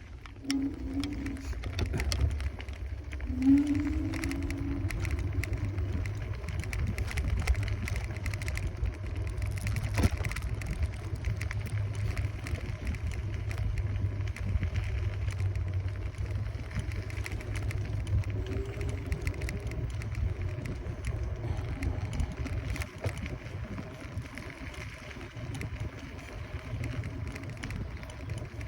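Riding a Kaabo Wolf Warrior 11 Pro electric scooter: steady low rumble of wind buffeting the microphone and road noise, with brief rising whines as the scooter accelerates near the start and again about two-thirds through.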